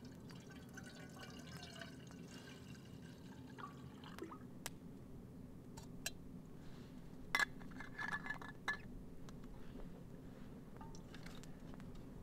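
Hot drink poured from a thermos flask into a cup, the pitch of the pour rising as the cup fills over the first few seconds. Then a few sharp clicks and a brief ringing tone about halfway through as the flask and cup are handled.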